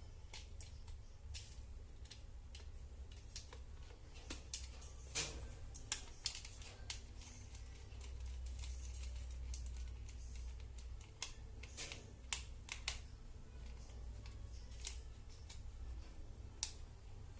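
Irregular small clicks and taps from a wall socket and its wires being handled, as the wires are fitted into the terminals, over a steady low rumble.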